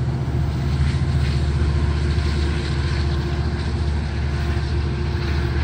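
Diesel locomotive engine running steadily: a deep, even hum with a steady higher tone above it.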